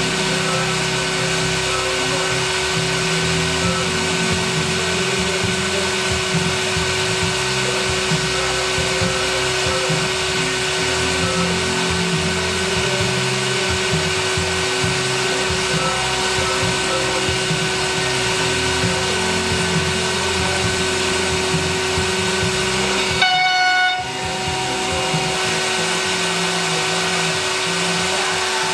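High-speed CNC router spindle spinning at 22,500 RPM, giving a steady high whine over an uneven low mechanical rumble. About 23 seconds in the sound breaks off briefly and changes to a different, brighter ringing tone.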